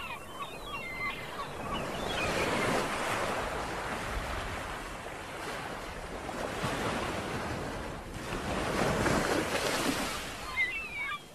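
Sea water washing and sloshing around a camera held at the surface off a rocky shore, a rushing wash that swells about two seconds in and again near the end. Small birds chirp briefly at the start and just before the end.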